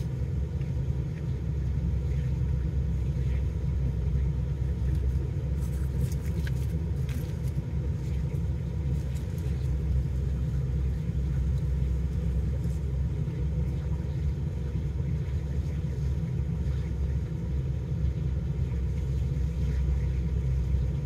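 Steady low rumble of a vehicle idling, heard from inside the cab. A few brief crinkles of a foil sandwich wrapper come around six to seven seconds in.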